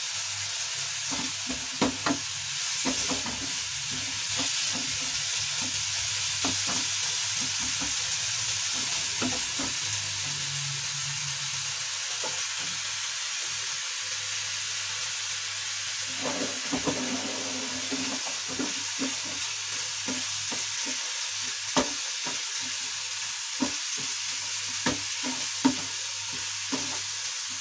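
Chopped onions and bitter gourd peels sizzling in hot oil in a frying pan, with the irregular scrapes and taps of a wooden spatula stirring them.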